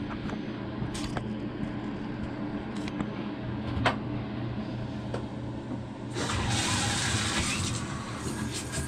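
Bathtub tap turned on about six seconds in, water running hard into the tub to fill it for a dog's bath. Before that, a steady low hum with a few faint clicks.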